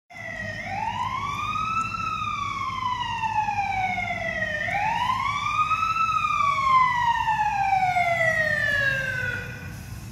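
Fire engine siren sounding a slow wail: twice it rises quickly, then falls slowly over several seconds, above a low engine rumble.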